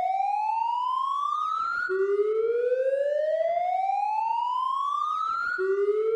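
A siren-like electronic tone rising slowly in pitch over nearly four seconds, then snapping back down and rising again. No glass breaking is heard.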